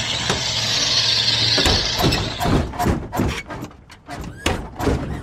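Hard plastic toy parts clicking and knocking as a toy crane lifts an overturned toy auto rickshaw back onto its wheels. The clicks come in a quick run over the second half, after a steady hiss at the start.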